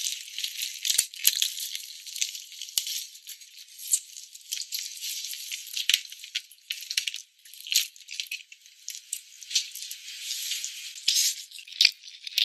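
Dense, irregular crinkling and crackling as a whole roast chicken is pulled apart by hand on greaseproof paper: the paper rustling and the crisp skin tearing, with sharp clicks scattered throughout.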